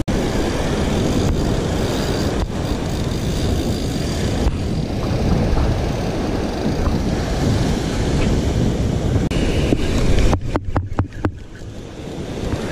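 Wind buffeting the microphone over the wash of beach surf, a steady rumbling noise that drops away briefly near the end.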